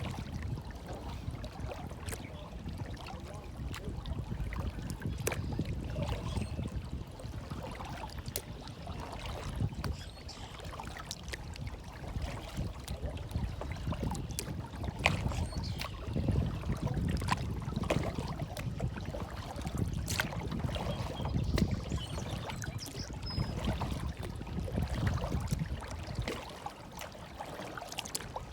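Water lapping and sloshing, with a low rumble that swells and fades every few seconds and many small splashy clicks.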